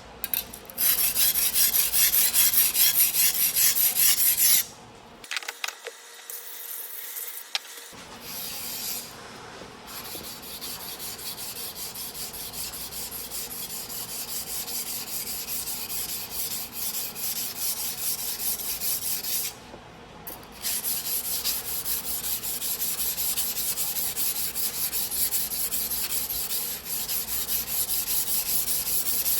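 Sujihiki single-bevel knife blade ground by hand on a whetstone: steel scraping back and forth in quick repeated strokes, stopping briefly twice.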